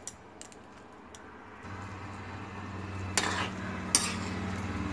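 Fried gram-flour (besan) pieces and a utensil knocking into a metal wok of simmering curry: faint clicks, then two sharp knocks about three and four seconds in. A low steady hum comes in under it about halfway.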